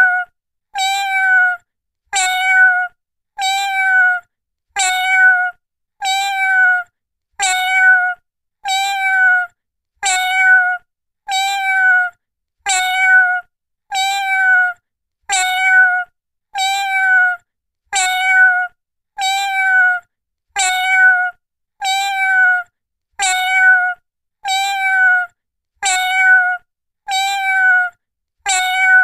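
Domestic cat meowing: the same short, even-pitched meow repeated at a steady pace, a little under once a second and a half, each call identical to the last, as in a looped recording.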